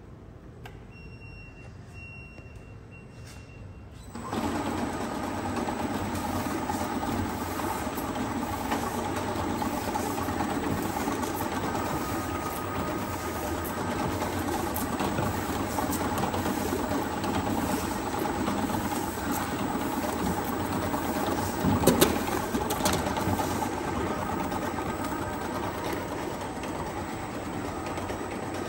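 Colamark A117 drum-wrap bottle labeling machine, with its rotary bottle table and conveyor, starting up about four seconds in and then running steadily with a constant mechanical whir. A brief high steady tone sounds before it starts, and a couple of sharp knocks come about three-quarters of the way through.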